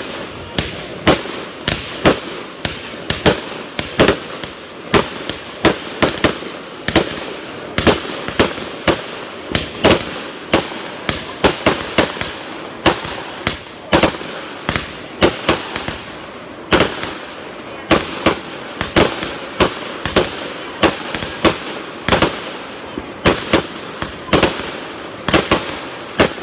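Aerial fireworks going off in quick succession: sharp bangs about two a second, one after another throughout, with a brief lull a little past the middle.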